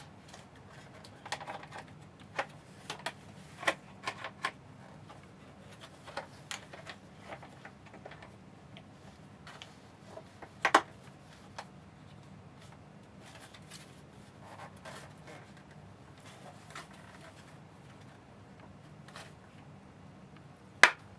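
Plastic parts of a Frankford Arsenal wet/dry media separator being handled and fitted together: scattered clicks and knocks, with a louder click about halfway through and another near the end as the pieces snap into place.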